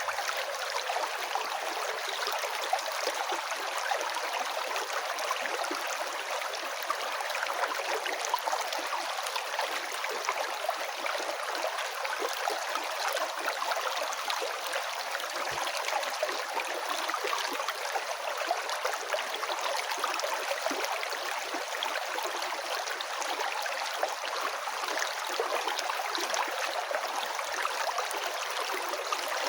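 A river stream flowing and rippling steadily.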